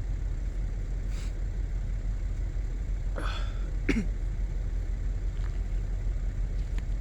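A steady low rumble, with a brief human vocal sound (a short grunt or throat-clear with falling pitch) about three to four seconds in.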